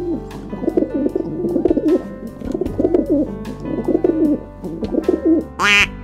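Dove cooing: low, warbling coos in repeated phrases, over light background music. A short, louder sound breaks in near the end.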